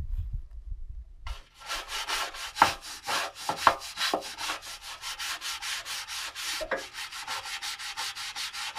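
A stiff hand scrubbing brush scrubbed rapidly back and forth against the corroded metal of a boat trailer frame, starting a little over a second in after a low rumble.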